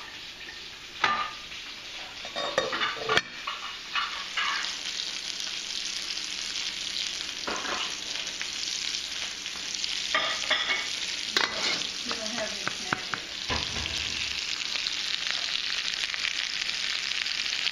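Pork chops frying in a pan with a steady sizzling hiss, over scattered clinks, scrapes and knocks of pots, a lid and utensils.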